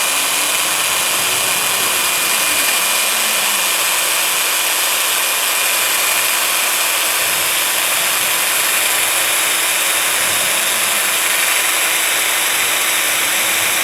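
Electric drill spinning a 3-inch 3000-grit Velcro sanding disc against copper pipe, a steady motor whine under the abrasive rasp of the disc. The disc is run dry, with no liquid, so it is clogging with copper, oxidation and dirt.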